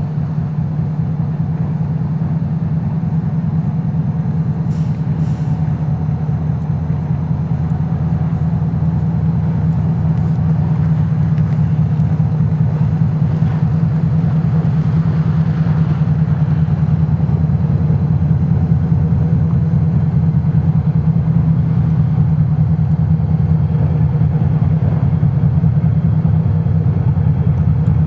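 Diesel engine of a 2TE10U locomotive, a 10D100 two-stroke opposed-piston unit, running with a steady low rumble as the locomotive moves slowly closer, growing gradually louder.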